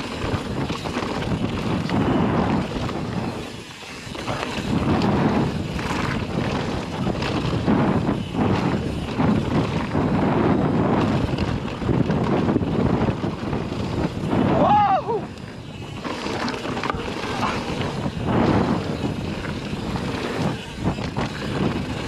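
YT Tues Core 4 29 downhill mountain bike ridden down a dirt trail: a steady rough rush of tyres on dirt and stones with the bike rattling over the bumps. Wind buffets the microphone throughout. A short high squeal comes about fifteen seconds in.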